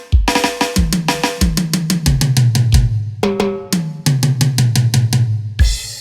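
Electronic drum sounds from a Roland SPD-30 Octapad preset: a fast run of snare, bass-drum and low tuned drum hits with cowbell-like ringing strikes, ending a little before the end in a cymbal crash that rings on.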